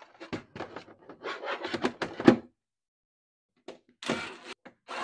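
Hard plastic dash tray and parts handled and fitted into place: a quick run of knocks and rubs. About four seconds in, a cordless drill starts in short bursts, drilling into the plastic tray.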